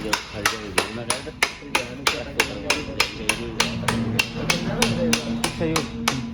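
Hammer blows struck in a steady rhythm, about three a second, during work on a motorcycle wheel.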